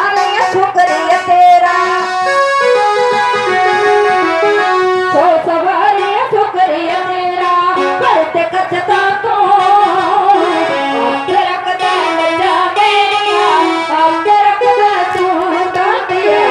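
Two women singing a devotional song into microphones, accompanied by an electronic keyboard, with small hand drums tapped in time.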